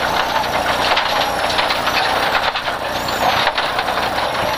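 Rally car at speed on a loose forest stage, heard from inside the cabin: the engine runs hard under a steady wash of tyre and gravel noise, with many small clicks of stones striking the underside.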